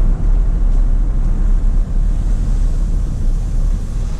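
Vehicle running with a steady low rumble, heard from the car.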